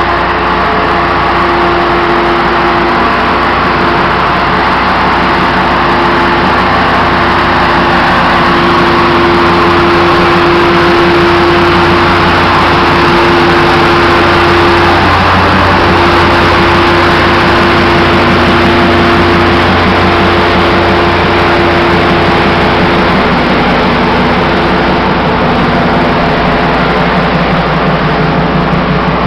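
Diesel engines of Brookville BL20GH locomotives running loud and steady as they roll slowly past close by, with a steady engine tone that drops out briefly about halfway through.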